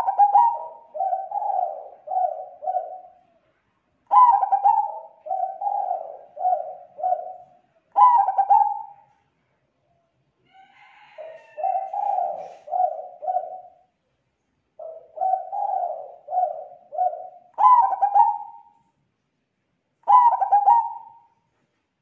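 Zebra dove (perkutut) cooing, a full, clear lure call: about six phrases a few seconds apart, each opening with a higher note and rolling on into several lower coos, some cut short after the first notes.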